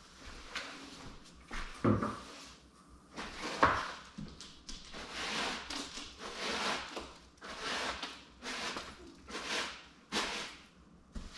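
A broom sweeping loose potting soil across a hard floor, a scratchy brushing stroke about once a second, with a couple of knocks in the first few seconds.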